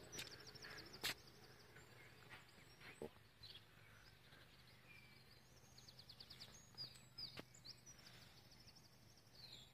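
Quiet outdoor ambience: faint birdsong, with high chirps and quick trills coming and going, over a low steady hum. Two faint clicks, about a second in and again after about seven seconds.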